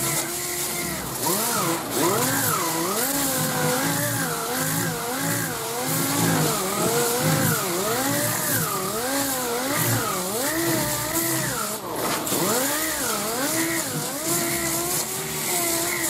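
Pneumatic 5-inch sander running against body filler on a steel panel, with a steady air hiss. Its pitch dips and rises over and over as it is pressed and worked back and forth across the panel.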